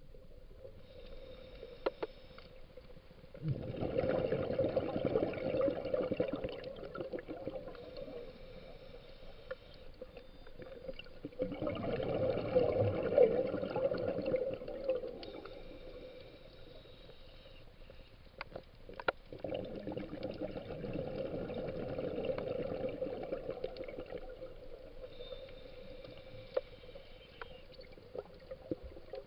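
Scuba diver breathing through a regulator underwater: three long bursts of exhaled bubbles about eight seconds apart, with a quieter hiss between them.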